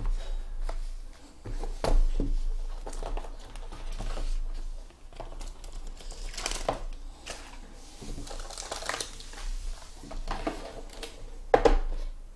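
Foil wrappers of trading-card packs crinkling and tearing as they are unwrapped and handled, with irregular rustles and light knocks of card boxes on the table. Near the end there is a single sharp knock.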